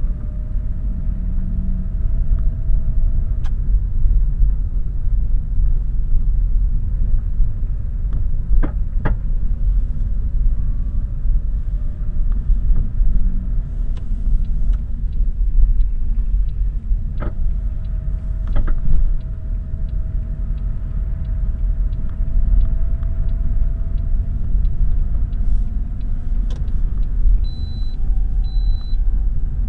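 Lada Vesta driving, with a steady engine and road rumble and a sharp knock every few seconds from under the bonnet. The owner puts the knock down to a broken right engine mount; it comes over bumps and in turns. Two short high beeps sound near the end.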